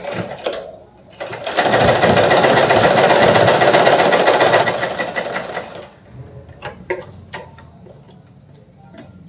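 Vintage domestic sewing machine running a seam along a folded fabric strip. It starts a little over a second in, runs fast for about four seconds with a dense rattle, then slows to a stop. A few scattered clicks follow.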